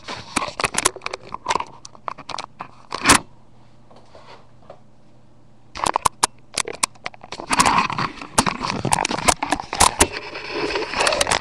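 Handling noise: bumps, scrapes and crackling as the camera is moved about and things near it are handled. It comes in two busy stretches with a quiet pause of a couple of seconds in the middle.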